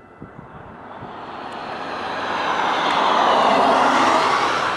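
Distant roar of a Falcon 9 v1.1 rocket's nine Merlin 1D first-stage engines reaching the ground during ascent, swelling steadily to its loudest about three to four seconds in.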